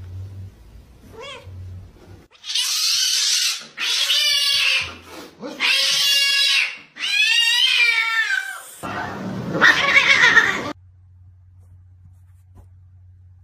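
A cat yowling in about five long, wavering calls one after another. The last call is harsher and noisier.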